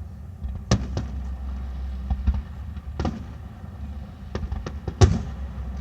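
Fireworks shells bursting: a run of sharp bangs a second or two apart, the loudest about five seconds in, with smaller crackles between them.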